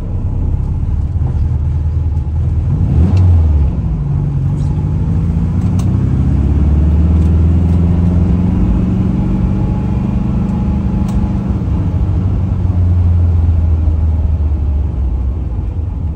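1970 VW Beetle's air-cooled flat-four engine pulling the car along, heard from inside the cabin. Its pitch climbs as it accelerates, drops about three and a half seconds in, then climbs again and falls away near the end.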